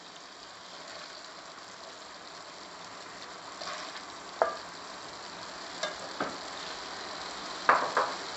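Bottle gourd curry sizzling steadily in a pan while a spatula scoops it out, scraping and knocking against the pan a few times, with the loudest knocks near the end.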